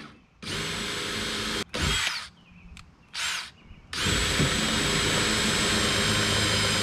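Cordless drill boring a bolt hole through a kayak crossbar: a short run, two brief bursts, then a long steady run with a high whine starting about four seconds in.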